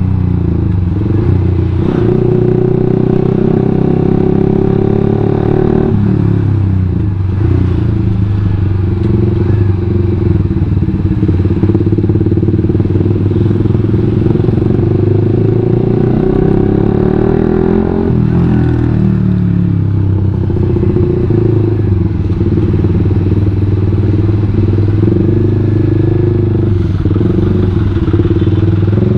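Suzuki GSX-R150's single-cylinder engine running through a WRX GP5 K1 aftermarket full-system exhaust while riding. The engine note rises and falls several times with throttle and gear changes, then eases off as the bike slows to walking pace near the end.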